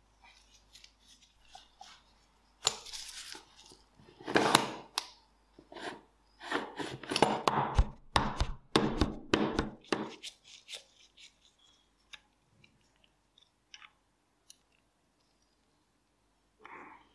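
Metal parts of an old nail gun being handled and taken apart with a pin punch: clicks, scrapes and rattles, busiest over the first ten seconds, then a few scattered light ticks.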